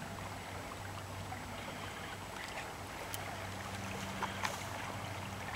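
Brook water running steadily, with a low steady hum underneath and a few faint clicks near the end.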